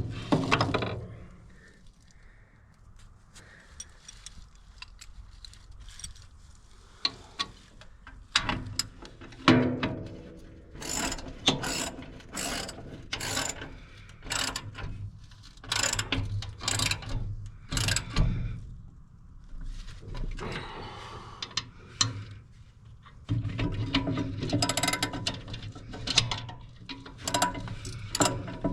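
Ratchet wrench clicking in repeated runs, with occasional metal knocks, as bolts are worked while tightening a wood chipper's drive belts.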